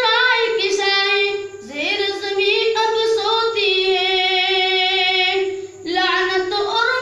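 A boy singing a naat, an Urdu devotional poem, unaccompanied into a microphone, in long phrases with a note held steady for about two seconds in the middle. He breaks briefly for breath twice.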